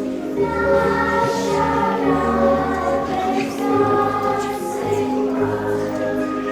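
Music with a choir singing held notes over an accompaniment.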